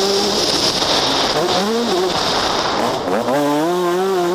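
Yamaha YZ125's two-stroke single-cylinder engine revving under changing throttle. The pitch dips and recovers, then drops away and climbs sharply a little after three seconds in as the rider gets back on the gas.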